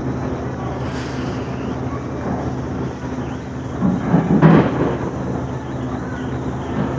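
Steady low hum and rumble of railway platform ambience, with a short louder burst of rough noise about four seconds in.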